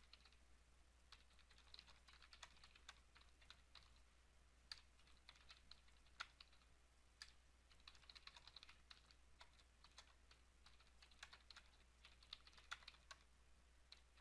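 Faint typing on a computer keyboard: irregular runs of quick keystrokes with short pauses between them.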